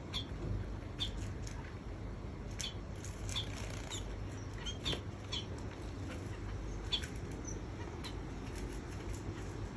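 Small finches bathing in a shallow dish of water: a scattering of brief, sharp splashes and wing flutters, about ten in all, over a steady low hum.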